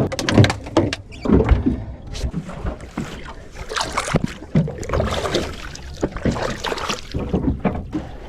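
Irregular knocks and clatter of handling on a small fishing boat, over a wash of water and wind noise.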